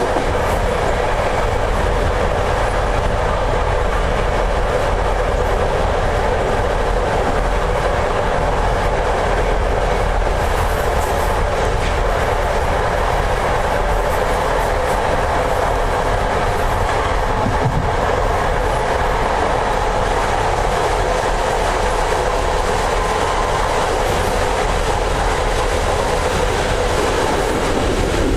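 Passenger train carriage running at speed: a steady rumble of the wheels on the rails, with a few clicks over rail joints and points.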